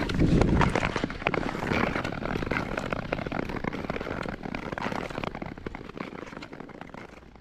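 Nordic skate blades scraping and gliding over natural lake ice, with a dense scatter of small crackles and ticks. Loudest in the first second, then gradually fainter.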